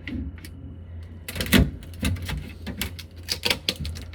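Clatter of plastic clicks and knocks from the refrigerator's drawers and fittings being handled, with one louder knock about one and a half seconds in, over a steady low hum.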